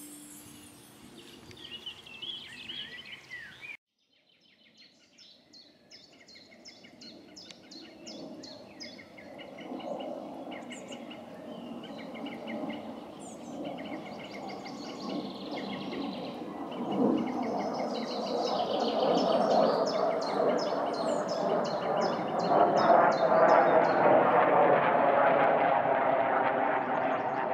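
Small birds chirping, with quick repeated high trills, over a steady outdoor noise that grows louder through the second half. The sound drops out briefly about four seconds in.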